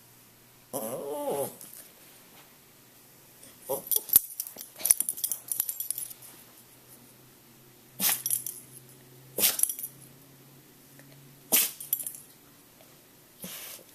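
Dog sneezing repeatedly: a quick run of sneezes and snorts about four seconds in, then single sharp sneezes every couple of seconds, four more in all. The owner says rainy weather always sets off these sneezing fits.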